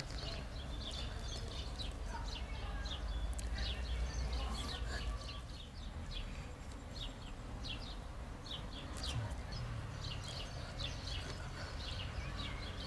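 Small birds chirping, many short quick calls in a row, over a steady low outdoor rumble.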